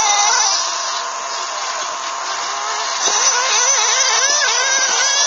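1/8-scale off-road RC buggies, among them an RC8B converted to a brushless electric motor, running on a dirt track. Their motor whines rise and fall repeatedly with the throttle over a steady hiss, changing most in the second half.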